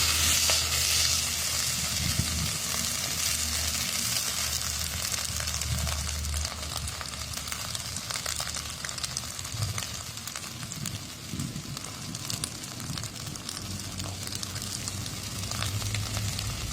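Yardlong beans (cowpeas) sizzling and crackling in hot oil in a pan, just tipped in to stir-fry. The sizzle is loudest at the start and settles into a steady frying crackle, with a low hum underneath.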